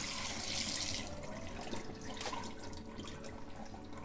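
Cold tap water running onto blanched nettle leaves in a metal colander, cut off about a second in. After that come faint drips.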